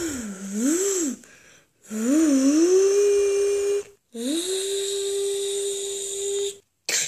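A person's voice humming without words: a few wavering up-and-down notes, then two long notes, each swooping up at the start and then held steady.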